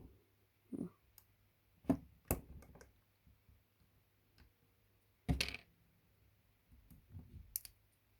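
A few scattered clicks and light knocks at irregular intervals over a faint low hum, the loudest about five seconds in.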